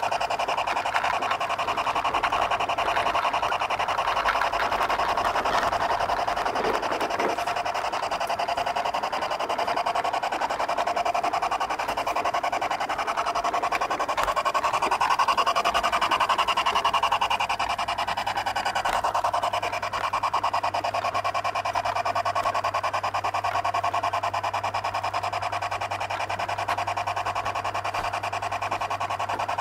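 Model garden-railway locomotive running along its track, heard from close behind: a steady whine at several pitches that drifts slowly up and down as it goes, over fast, fine clicking from the wheels and gearing.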